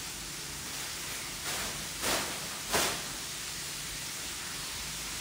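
Buttermilk-battered chicken frying in a skillet of hot oil: a steady sizzle, with three brief louder hisses in the middle as the pieces are worked with tongs.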